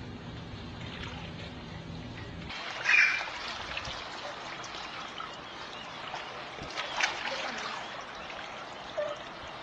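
Swimming-pool water splashing and trickling around a baby swimming beside an adult. The loudest moment is a short, sharp, high-pitched sound about three seconds in, followed by a few smaller splashes. A low steady rumble in the first couple of seconds stops suddenly.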